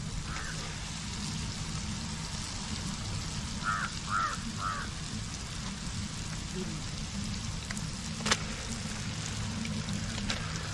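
Masala frying in a kadai over an open wood fire: a steady sizzling hiss with small crackles. Three short high chirps come about four seconds in, and a sharp click a little after eight seconds.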